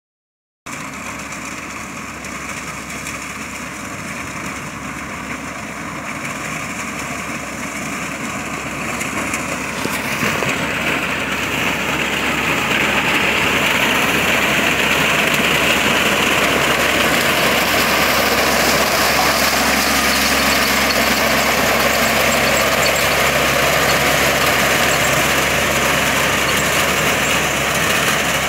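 Compact tractor engine running steadily as its front-mounted mini reaper cuts through standing maize. It grows louder over the first dozen seconds as the machine comes closer, then holds steady.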